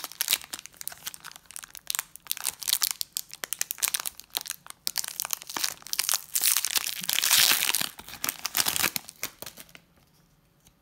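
Foil wrapper of a Pokémon trading card booster pack being torn open and crinkled by hand: a dense run of sharp crackles, loudest about seven seconds in, that stops a second or so before the end.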